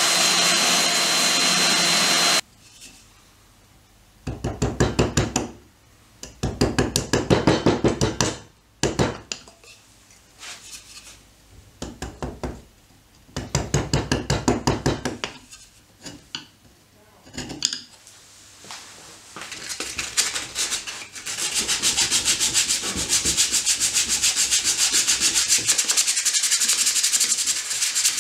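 A small handheld power sander runs with a steady whine and cuts off about two seconds in. Then wood is sanded by hand in quick back-and-forth strokes, first in short bursts of a second or two, then almost without pause for the last third.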